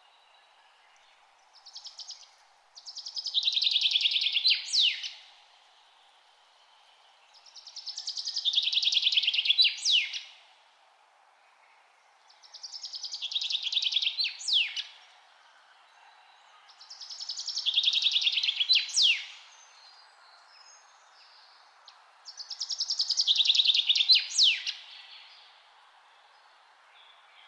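A songbird singing the same song five times, roughly every five seconds: each a fast, buzzy trill that grows louder over about two seconds and ends in a few sharp downward-slurred notes. A faint steady background hiss sits under it.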